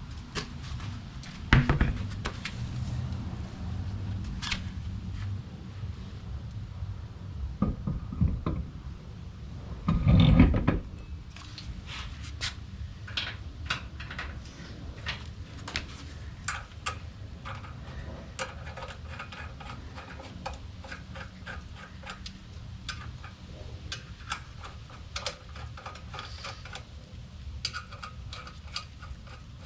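A Fuchs alloy wheel being hung on the rear hub of an air-cooled Porsche 911 over long studs and spacers: a sharp knock near the start and a heavy thump about ten seconds in, then a long run of small metallic clicks and taps as the lug nuts are fitted onto the studs.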